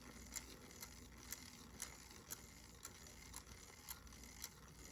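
Bolex Rex-5 16mm camera's spring motor being wound with its crank: faint, even ratchet clicks about two a second.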